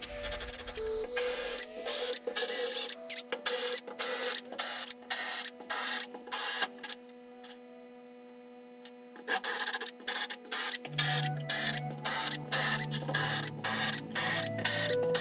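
Stepper motors of a homemade CNC router driving its axes: a steady electrical whine with rapid irregular clicking. The motion pauses briefly about halfway through, then resumes with a lower tone added.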